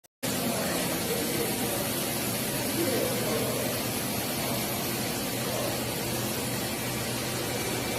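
Steady running hum and even hiss of a powered-up Doosan VTR 1216 CNC vertical turning center, its pumps and fans running with no cutting.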